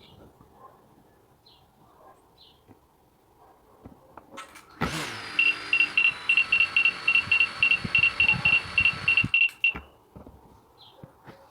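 Autel Evo Nano Plus drone's motors spin up for about four seconds and then cut off suddenly, with a rapid high beeping of about four beeps a second over the motor whine.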